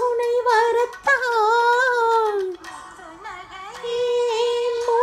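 A woman singing a slow Tamil song melody in a high voice, with long held notes that waver in pitch. There is a short break about a second in, and a softer passage before a long steady note near the end.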